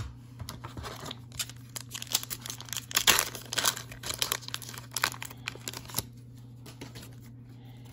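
A 1995 Upper Deck SP Motorsports trading-card pack wrapper being torn open and crinkled by hand: a run of irregular crackles, loudest about three seconds in, that dies away about six seconds in.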